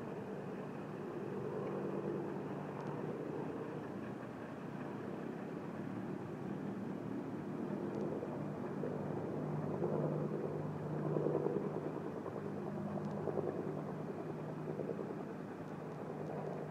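Steady low engine drone, its pitch shifting slightly about two-thirds of the way through.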